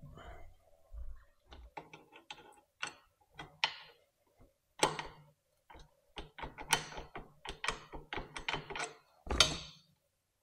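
Irregular sharp metallic clicks and knocks from an e-bike's rear hub-motor wheel being worked down into the frame dropouts. The clicks come thicker in the second half.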